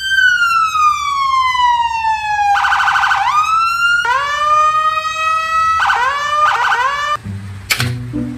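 Police siren: a long wail sliding down in pitch, a fast warble about two and a half seconds in, then rising sweeps and several short whoops. A sharp click comes near the end.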